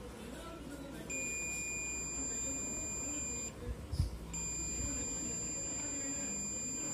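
Continuity buzzer of a Mastech MAS830L digital multimeter giving a steady high beep twice, each about two and a half seconds long, as the probe touches the freshly re-soldered joint: there is continuity through it.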